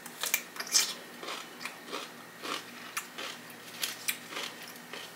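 Biting into a large kosher dill pickle with a sharp, crunchy snap, then chewing it with a crunch about twice a second.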